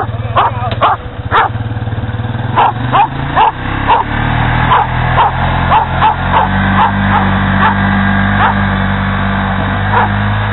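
A dog barking over and over, in quick runs of yaps at first and then more spaced out. Under it a motor hums steadily; the hum rises slightly about six seconds in.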